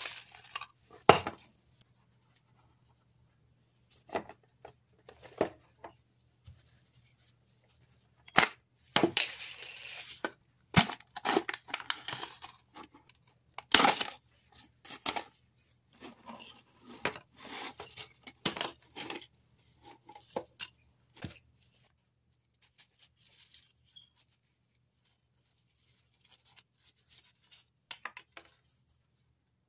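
Hands in thin plastic gloves open a can of Pringles: sharp clicks and knocks from the plastic lid and cardboard can, and a crackly tearing as the foil seal is peeled off the rim. A few light crisp snaps near the end as a chip is broken in half.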